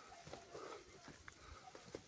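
Near silence: faint outdoor ambience with a few soft taps.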